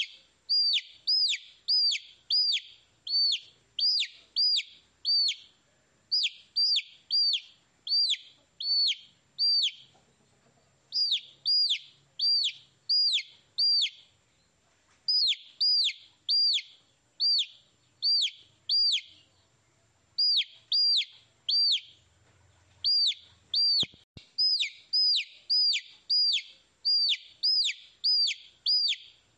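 Baby chicks peeping: a steady series of sharp peeps that fall in pitch, about two a second, in runs broken by short pauses.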